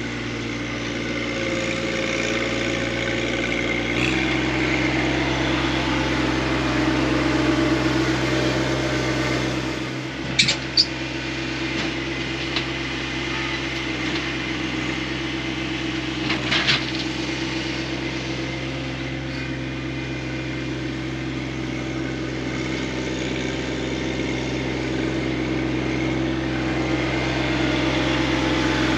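John Deere 1025R compact tractor's three-cylinder diesel engine running steadily, picking up speed about four seconds in. A few short sharp clanks come around the middle.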